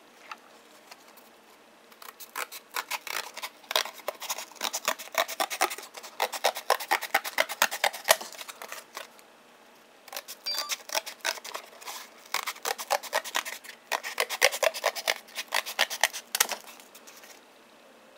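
Paper scissors cutting through corrugated cardboard: a rapid crackle of snips in two long runs, with a short pause about halfway.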